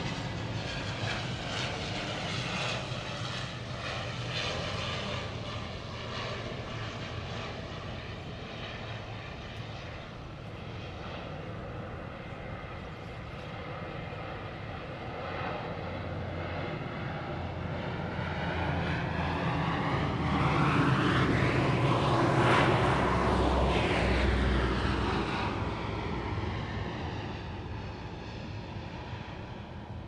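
A military fixed-wing aircraft flying past low overhead. Its engine noise swells with a sweeping, whooshing quality, is loudest about two-thirds of the way through, then fades as it moves away.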